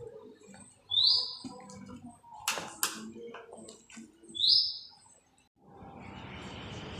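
A bird chirps twice, two loud short calls that rise and then hold, about three and a half seconds apart, with a few sharp clicks between them. Near the end a steady hiss comes in.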